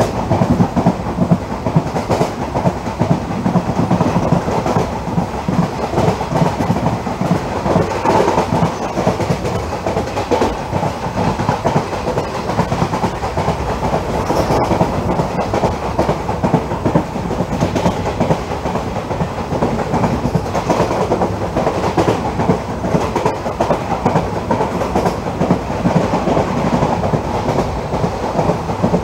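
Janshatabdi Express passenger coach running at high speed: a steady, loud rumble of steel wheels on rail with a continuous clickety-clack of wheels over the rail joints.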